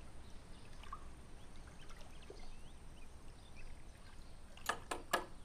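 Quiet outdoor ambience with faint scattered chirps, then, a little before the end, a quick run of sharp knocks on a door.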